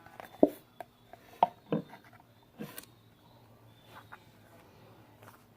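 A handful of light knocks and clicks from a plastic glue bottle being picked up and handled on a table.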